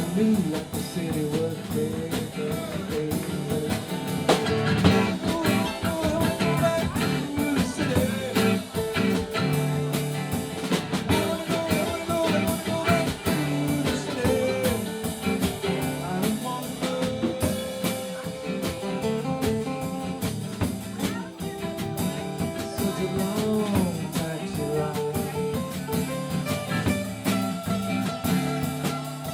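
Live band playing an instrumental passage: a guitar lead with bending notes over a drum kit and backing instruments, in a bluesy style.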